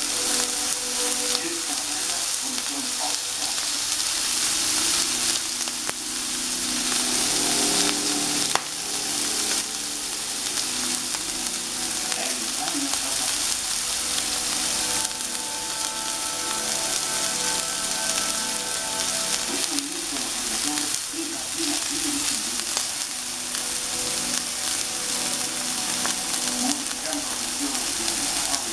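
Heifer beef steaks sizzling on a hot black stone-coated griddle: a steady frying hiss.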